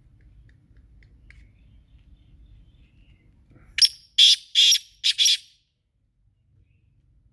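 Black francolin calling: five loud, harsh notes in quick succession about four seconds in, lasting about a second and a half in all.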